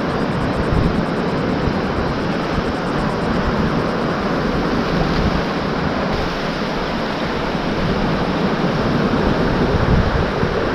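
Steady wash of ocean surf on a beach, with wind gusting on the microphone.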